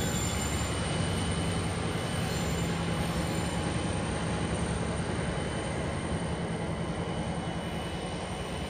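Pacific National 81 class diesel-electric locomotive 8102, with its EMD two-stroke V12 engine, hauling container wagons away. A steady low engine drone fades slowly, with a faint high wheel squeal from the wagons.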